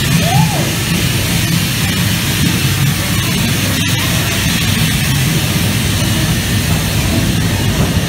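Mine-train ride cars rolling on their track through an enclosed tunnel: a steady, loud rumble with rail and wheel noise.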